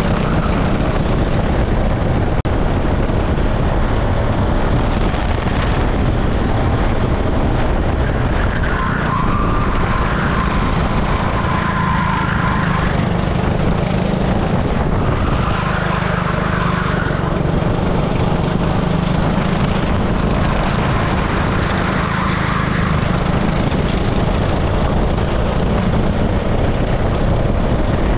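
An 18 hp super kart engine running steadily at racing speed, heard from onboard the kart. A higher-pitched tyre squeal swells and fades three times as the kart corners.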